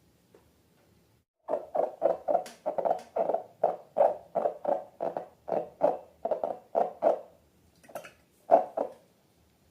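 Slime being squeezed and worked by hand, a run of short wet squelches about three a second that starts after a moment of near silence, breaks off briefly, and resumes near the end.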